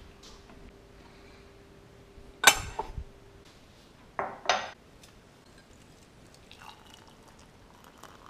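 Kitchen crockery clatter: a loud sharp knock, then two quicker knocks about a second and a half later as a mug is set down on a stone countertop. Near the end there is faint pouring as hot water runs from a kettle into the mug.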